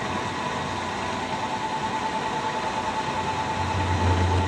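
Milling machine spindle running with a Woodruff key cutter cutting a keyway into a one-inch cold-rolled steel shaft, fed in slowly and dry. A steady whine with a low hum that comes up about three and a half seconds in.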